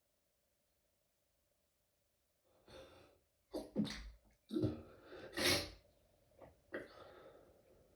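A quick run of stifled sneezes, held in, with short sharp breaths between them, starting about two and a half seconds in and dying away near the end.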